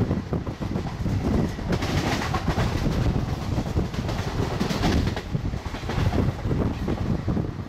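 Indian Railways express train running at over 100 km/h, heard from the coach doorway: wheels clattering over the rails and wind rushing past the microphone. A brighter hiss swells between about two and five seconds in.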